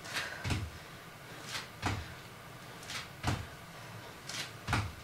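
Single-leg lunge hops on a floor: four hops about a second and a half apart, each a short hiss followed by a low thud as the foot lands.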